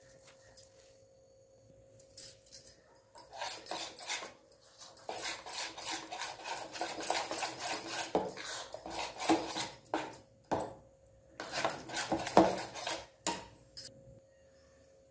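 Gram-flour bajji batter being beaten with a utensil in a plastic mixing bowl: fast, rhythmic wet slapping and scraping that comes in two spells, with a pause between them.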